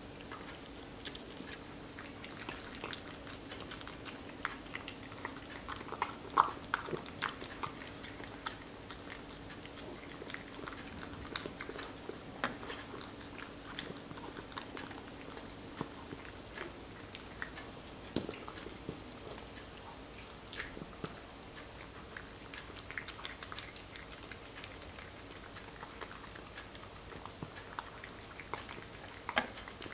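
A small dog eating a raw-food meal from a raised bowl: irregular wet chewing, licking and small clicks of the bowl and food, over a faint steady hum.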